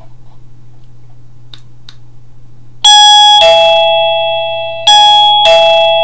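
1Byone Easy Chime plug-in wireless doorbell chime sounding a loud two-note ding-dong twice, a higher note then a lower one, each ringing on and fading. Before it there is a low steady hum and two faint clicks.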